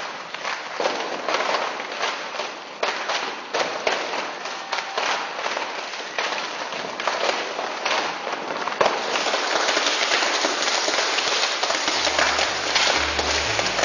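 Exploding-water installation: gas fed into water detonating in rapid sharp cracks and pops, merging into a dense continuous crackle about nine seconds in. A low pulsing beat comes in near the end.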